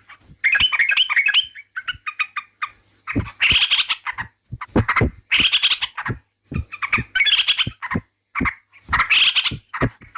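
Yellow-vented bulbul (trucukan) singing: loud bursts of quick, bubbly chattering notes repeated about once a second, with short pauses between phrases.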